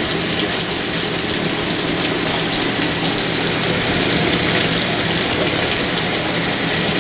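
Top-load washing machine filling, water spraying steadily from the inlet into its empty drum.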